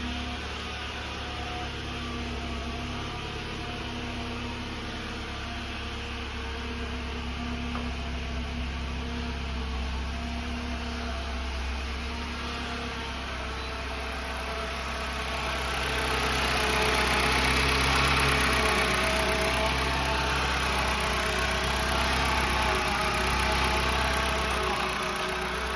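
2013 Jeep Compass running with a whine from its failing transmission over the engine hum; about fifteen seconds in it grows louder and the higher whining tones come up stronger, then eases slightly near the end.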